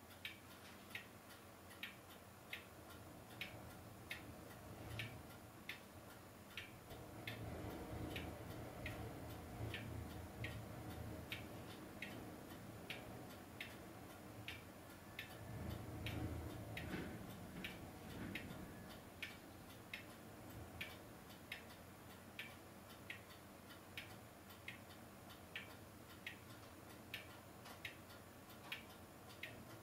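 Faint, steady ticking, about five evenly spaced ticks every three seconds, over a low rumble that swells twice, around seven and sixteen seconds in.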